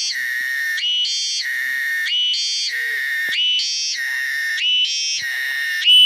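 Cicada singing a loud, repeating phrase: a buzzing tone that climbs in quick steps to a higher note, over and over about once a second.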